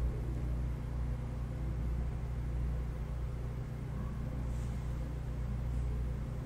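Steady low hum and rumble of room tone, with no other sound of note.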